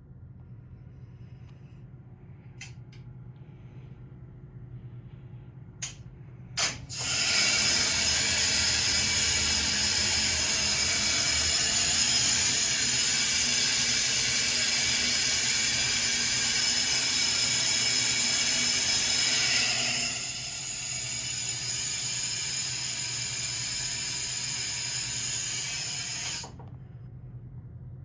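Elevator machinery under a low steady hum: a few sharp relay-like clicks, then a loud, even hissing run of about 20 seconds that drops in level about two-thirds of the way through and cuts off sharply, as the car travels and stops.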